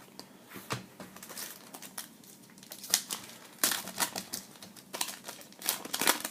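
Crinkling and tearing of a foil trading-card pack wrapper being opened by hand. It comes in bursts of sharp crackles, the loudest in the second half.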